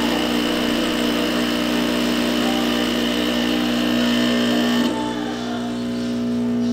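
Pump of a Pasquini Livia G4 espresso machine running steadily under pressure while pulling a shot, a loud mechanical hum. About five seconds in the sound changes, the hiss falling away and a steadier, lower hum remaining.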